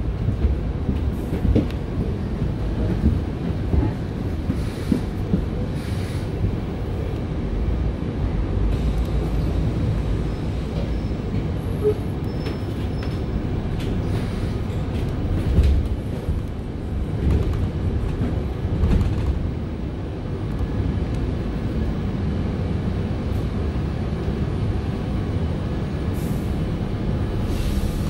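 Cabin noise on the upper deck of a Volvo B5LH hybrid double-decker bus on the move: a steady low rumble from the drivetrain and road, with a few clicks and knocks from the body.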